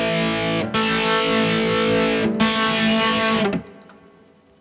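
Distorted electric guitar through an amp-modeling multi-effects unit, playing a JCM 800-style crunch tone with chorus on. Three held chords, restruck about 0.7 and 2.3 seconds in, the last ringing out and fading away about three and a half seconds in.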